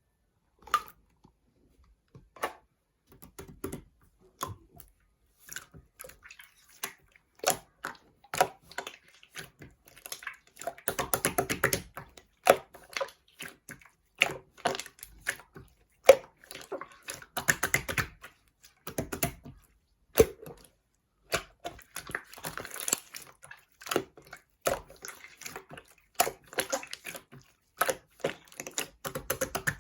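Slime being squeezed and pressed by hand, giving wet clicks and pops from trapped air in irregular bursts, with several denser runs of crackling.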